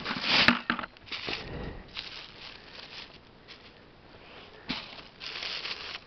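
Irregular rustling and crunching of dry fallen leaves and lichen on the forest floor as someone moves over it and bends down, loudest in the first second, with a few shorter rustles after.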